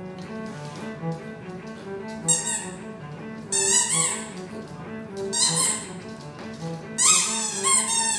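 Background music with bowed strings such as cello, over which a squeaky toy ball squeaks four times as a small dog bites and pushes it, each squeak short and bending in pitch.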